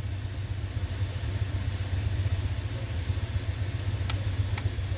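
Steady low roar of shop coolers running full blast, over the hiss of engine oil streaming fast from the drain plug into a drain pan. Two sharp clicks near the end.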